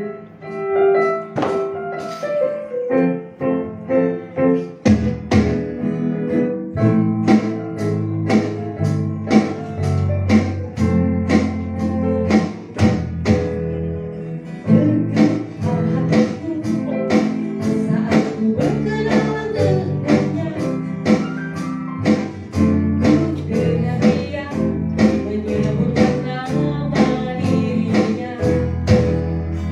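Small live band playing a song: keyboard, electric bass, acoustic guitar and drums, with a woman singing into a microphone. The bass and fuller rhythm come in about five seconds in.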